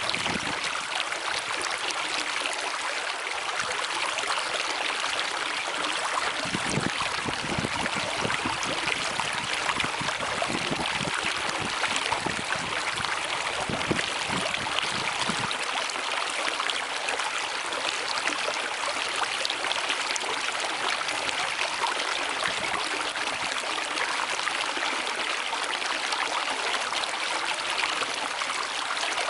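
Rushing stream water, a steady splashing flow, with deeper churning for several seconds in the middle.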